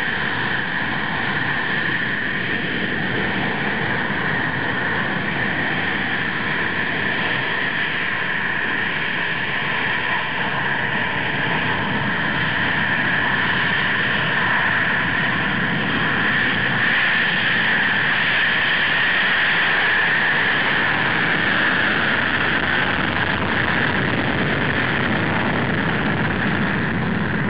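Jet noise from a Panavia Tornado ECR's twin RB199 afterburning turbofans during take-off: a steady, loud rushing noise that grows a little louder around the middle.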